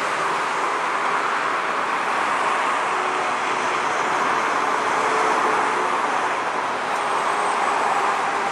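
Airbus A320neo airliner's jet engines running on landing approach and touchdown: a steady, continuous rush with faint humming tones beneath it.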